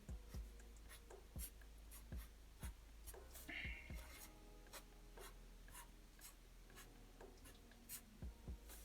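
Faint scratching of a drawing tool on paper: short, irregular strokes as small shapes are drawn, with a slightly longer stroke about three and a half seconds in.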